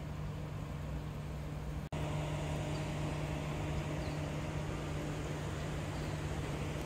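Steady outdoor background noise: a constant low hum under a hiss, cutting out for an instant about two seconds in, then going on a little louder.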